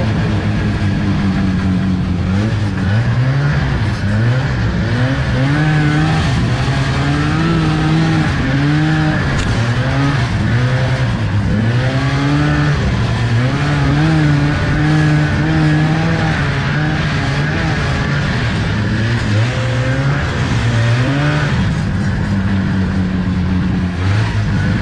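A 1975 Arctic Cat Panther 440 snowmobile's two-stroke engine running under way, its pitch rising and falling again and again as the throttle is opened and eased.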